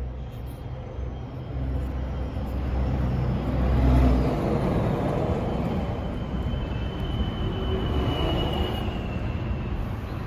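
Low rumble of a passing vehicle, swelling to its loudest about four seconds in and then holding steady, with a faint thin high whine later on.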